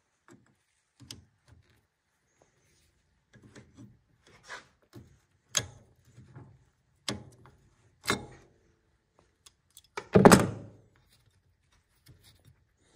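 Irregular metal clinks and knocks of hand tools working the cotter pin and axle nut on an ATV's rear axle, with one heavier knock about ten seconds in.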